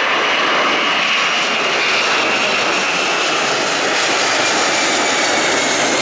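Twin turbofan engines of a Delta Boeing 767 at climb power just after takeoff: loud, steady jet noise with a high whine that slowly falls in pitch as the airliner climbs away.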